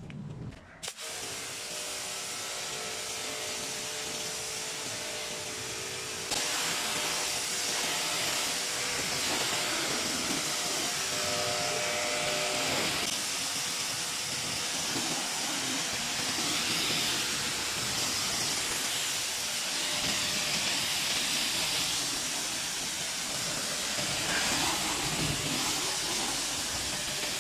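Pressure washer spraying a hissing jet of water onto a foam-covered car to rinse it off, with a steady hum under the spray for the first dozen seconds. The spray gets louder about six seconds in.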